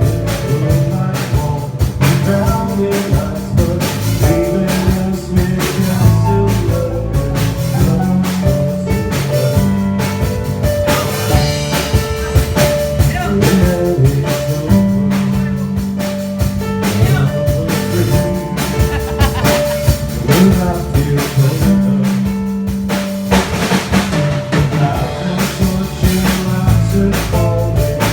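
A band playing: full drum kit with rimshots under bass and sustained melodic lines.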